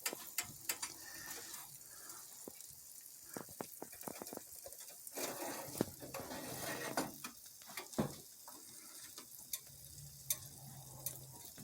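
Egg omelette frying in a nonstick pan, a faint steady sizzle, with scattered light clicks and scrapes of a utensil working it in the pan.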